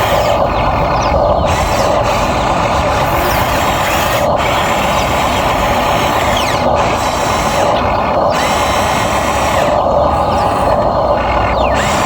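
Electric motors and gearing of a Huina RC excavator running with a steady mechanical whine, with bursts of wider hiss that come and go every second or two.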